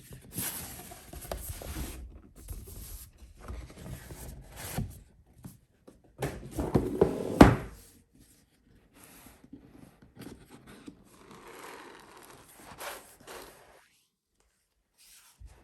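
Cardboard packaging being handled and opened: irregular rustling and scraping, with a sharp knock about seven and a half seconds in. It dies away near the end.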